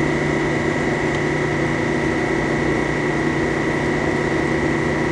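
Harig EZ-Surf surface grinder running with no load: a steady machine hum with a constant high whine, unchanging throughout.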